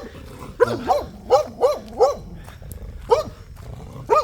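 A dog barking at a passer-by: a quick run of about five barks, a pause of about a second, a single bark, then another run starting near the end.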